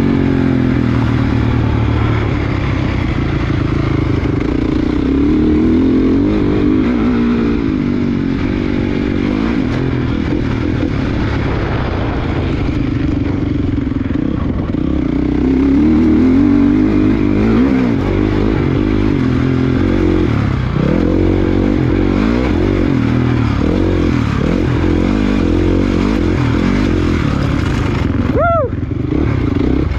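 Small motocross bike engine ridden hard, its revs rising and falling continuously through the gears and turns. Near the end the engine note dips briefly, then sweeps back up.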